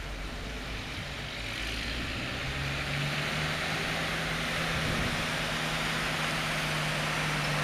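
Engine of a WWII US military vehicle running as it drives slowly over grass, growing steadily louder as it comes closer, with a steady low engine hum setting in about two and a half seconds in.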